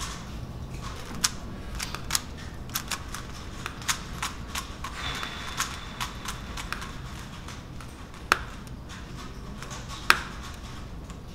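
Scattered sharp clicks and taps of office desk work, irregular and a second or so apart, over a low steady room hum, with a brief faint high tone about five seconds in.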